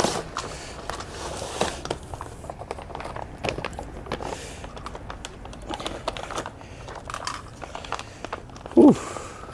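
Packaging crinkling and rustling, with scattered light clicks and knocks, as a box of aftermarket camber and toe arms is unpacked. A brief hummed vocal sound near the end is the loudest moment.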